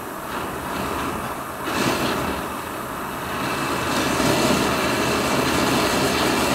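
Ring gas burner fed with gas and air, burning round a finned air-cooled engine cylinder with a steady rushing noise. The noise grows louder about three seconds in as the flame turns from yellow to blue. The cylinder is being heated to free its seized liner.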